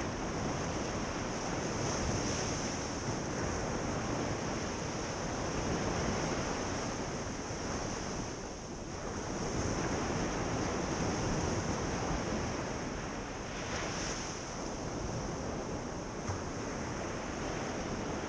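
Ocean surf washing onto a beach: a continuous rush of breaking waves that swells and ebbs, easing briefly about halfway through.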